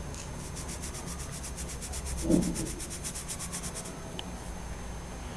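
Colored pencil lead scratching across paper in rapid, even back-and-forth strokes, about ten a second, stopping about four seconds in. This is a red Marco Raffine 1700 pencil being hatched onto a test swatch. There is a brief low thump a little past two seconds in.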